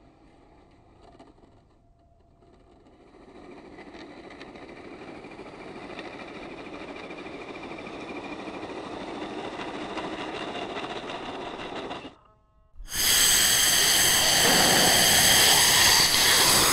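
Electric motor and gear drivetrain of a 1/10-scale RC crawler on an RC4WD Trail Finder chassis whining as it drives through snow, growing louder as it nears, then cutting off abruptly about twelve seconds in. After a short gap, a much louder, steady outro sound takes over near the end.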